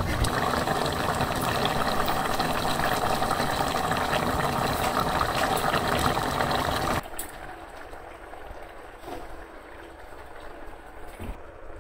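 A pot of fish curry bubbling at a boil, a steady dense sizzle with fine crackle. After about seven seconds it cuts off suddenly, leaving a much quieter background.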